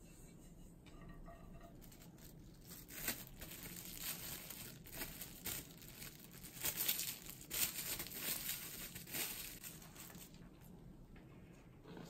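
Plastic cling wrap crinkling in the hands in irregular bursts as it is wrapped around a ball of dough. It starts about three seconds in and stops about two seconds before the end.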